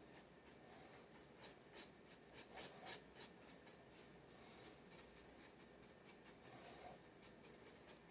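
Faint pen scratching on paper while sketching: a run of quick, short strokes about one and a half to three seconds in, then softer, longer strokes.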